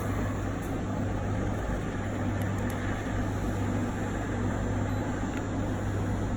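A machine running steadily: a constant low motor hum under an even whir.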